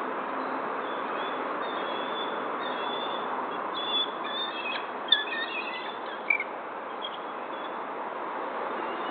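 Short, high bird chirps and calls scattered through the middle of the clip, with two sharp clicks about five and six seconds in, over a steady background hiss.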